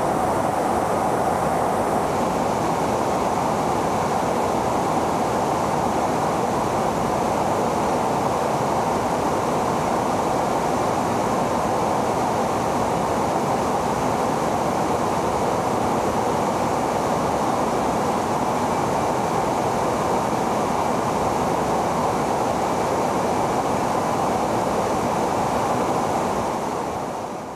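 Steady rushing in-flight noise heard from inside an aircraft cabin: engine and airflow noise, unchanging, fading out near the end.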